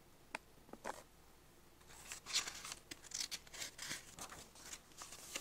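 Picture-book pages being handled and turned: a couple of faint ticks, then from about two seconds in a run of crisp paper rustles and flicks.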